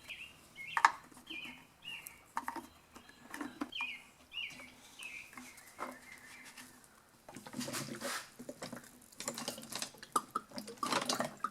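A small bird chirping: a run of short, falling chirps over the first six seconds or so, along with scattered light clicks and knocks of small parts being handled.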